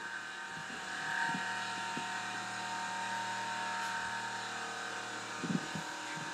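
Steady mechanical hum made of several steady tones, with a few soft knocks about five and a half seconds in.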